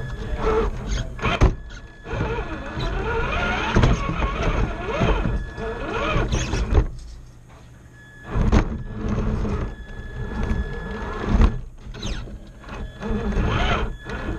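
Electric motor and geared drivetrain of an RC rock crawler whining, changing pitch with the throttle as it crawls over rocks, heard from a camera mounted on the truck, with sharp knocks of the chassis and tyres against the rocks. The whine drops away for about a second around the middle, then starts again.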